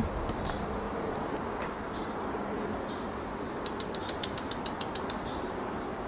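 Swamp insect ambience: a faint, steady, high-pitched drone over a soft hiss. A little past the middle comes a rapid run of about a dozen sharp high clicks.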